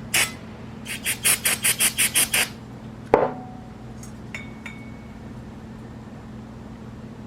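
Hands working on carburetor parts at the bench: a run of about eight quick, squeaky rubbing strokes, then a single sharp knock with a short ring and two light metallic clinks.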